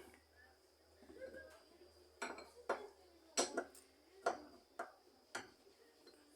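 Metal parts and tools clinking and knocking together, about seven sharp, irregular clinks during disassembly of a washing machine's transmission mechanism.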